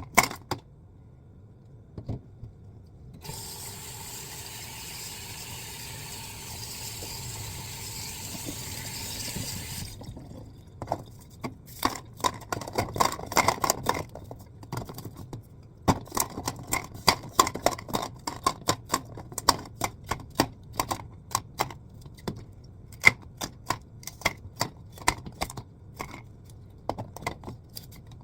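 Water running steadily into a container for about seven seconds, then a long run of ice cubes clinking and clattering, many quick knocks against each other and their container.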